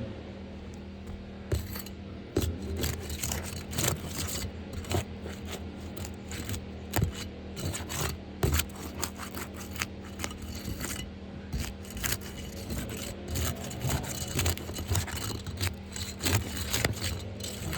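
Irregular scraping and sharp clicking of a hand tool working under asphalt roof shingles as a damaged shingle is loosened for removal. The clicks start about a second and a half in.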